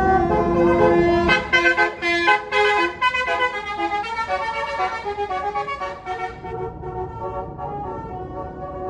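A tour bus's 'basuri' musical horn playing a tune of stepped notes over the low rumble of the passing bus, the rumble dropping away after a second or so and the horn growing fainter toward the end.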